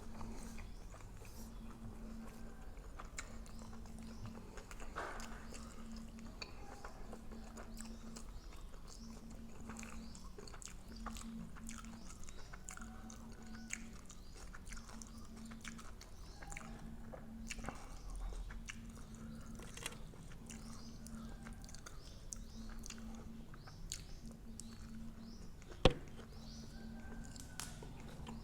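A person chewing and biting food close to the microphone, with small crunches and clicks. A faint low hum pulses on and off throughout, and there is one sharp tap near the end.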